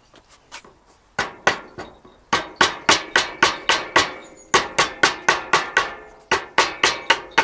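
Small hand adze chopping into a piece of wood: a run of sharp, ringing strokes at about three a second, coming in bursts with short pauses between them.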